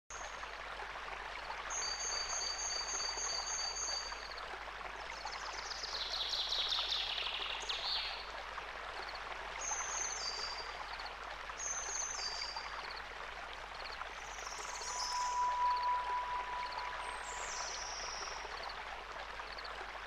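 Wild birds singing and calling over the steady rush of a stream: a fast high trill early on, then falling whistled phrases, short chirps and one long held whistle.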